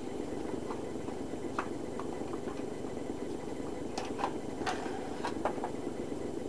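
A few light clicks and taps as the model ice racer's stiff-cardboard hatch and balsa frame are handled, over a steady low hum.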